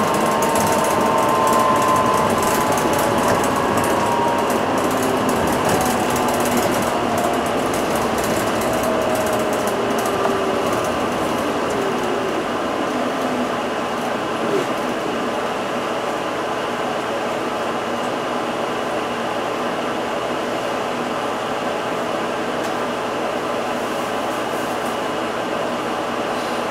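Inside an Isuzu Erga Hybrid city bus as it slows to a stop: the drive's whine falls in pitch over about the first fifteen seconds. After that the standing bus holds a steady mechanical hum with a faint knock partway through.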